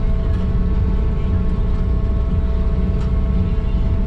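Heavy farm machinery's diesel engine running steadily under load, heard from inside the cab as a loud, constant low rumble with several steady whining tones from the driveline.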